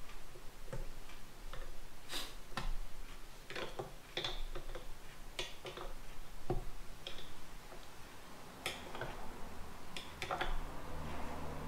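Irregular plastic clicks and taps as the parts of a KitchenAid ice cream maker attachment are handled and fitted to the head of a red KitchenAid Artisan stand mixer. A faint low hum comes in near the end.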